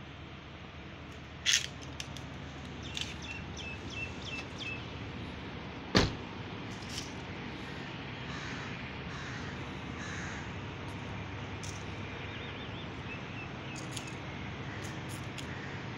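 Crows cawing and small birds chirping over a steady low background hum. There is a sharp click about a second and a half in, and a car door shuts with a heavier thump about six seconds in.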